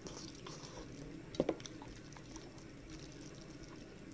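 Fingers squishing and mixing rice into curry gravy on a steel plate, with wet chewing and small clicks throughout. One sharp, louder knock comes about a second and a half in.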